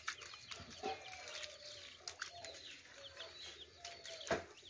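Chickens clucking with small birds chirping over them, and scattered faint clicks; a single louder knock about four seconds in.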